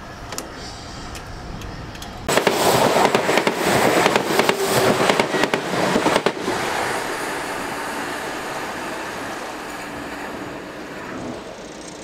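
Steam train noise: a sudden loud burst of crackling hiss starts about two seconds in and lasts about four seconds, then settles into a steadier rush that fades near the end.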